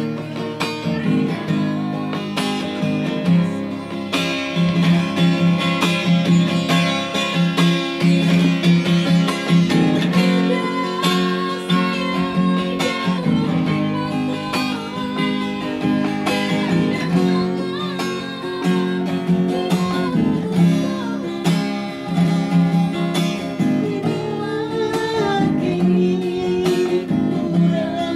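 Acoustic guitar strummed to accompany a woman singing a Minang song.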